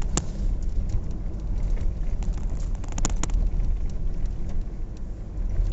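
Steady low road and wind rumble heard from inside a moving vehicle, with scattered sharp clicks and taps, a few of them together about three seconds in.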